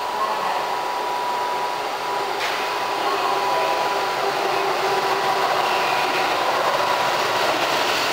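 Keihan 7000 series electric train at an underground platform: a steady whooshing mechanical noise with a faint thin steady tone, growing a little louder about three seconds in.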